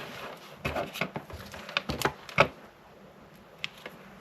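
Light clicks and knocks of handling a multimeter and its test probes on the dehumidifier's power supply, a quick run of them in the first two and a half seconds, then two faint ticks near the end.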